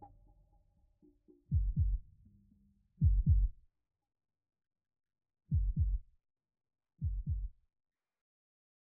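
Heartbeat sound effect: four low double thumps, lub-dub, about one and a half to two and a half seconds apart, the last a little softer.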